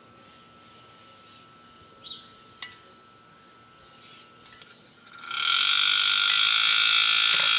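Refrigerator compressor, wired without its start relay, humming faintly while it fails to start, with a couple of clicks as a screwdriver bridges its start terminal. About five seconds in the compressor starts and runs loudly with a steady buzzing hiss.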